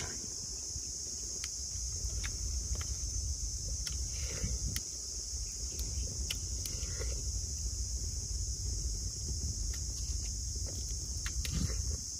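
Jungle ambience: a steady high-pitched insect drone over a low rumble, with scattered light clicks and taps.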